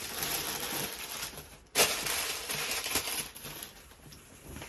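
Rustling and crinkling of packaging as it is opened and handled, with a sharper, louder crackle about two seconds in.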